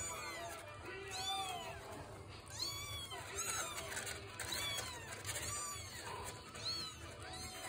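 British Longhair kittens mewing over and over: about a dozen short, high-pitched calls that rise and fall, roughly two a second.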